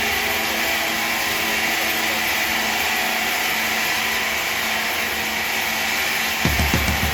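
Steady whirring noise of a running power tool or similar machine, with a few knocks near the end.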